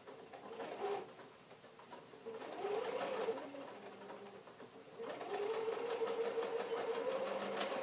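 Electric sewing machine stitching through several layers of fabric: a short burst of stitching about two seconds in, a pause, then steady stitching from about five seconds in. The motor whines steadily under a rapid patter of needle strokes.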